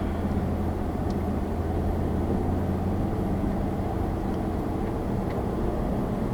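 Steady engine drone and road noise inside a vehicle's cab: a low, even hum with faint steady tones above it.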